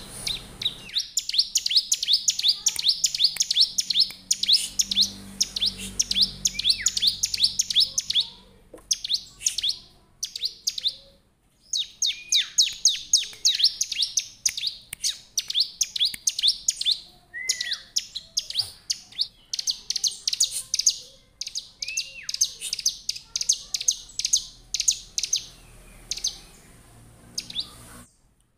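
Bar-winged prinia (ciblek) singing: long runs of rapid, high chirps broken by short pauses, with now and then a lower down-slurred note.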